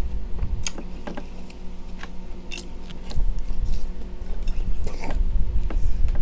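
Metal spoon scooping and scraping the flesh of a hollowed-out watermelon half, with scattered clicks of the spoon, and wet chewing close to the microphone, over a steady low hum.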